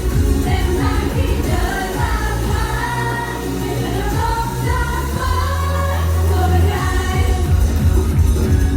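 Idol pop song performed live: sung vocals over a backing track with a heavy bass beat.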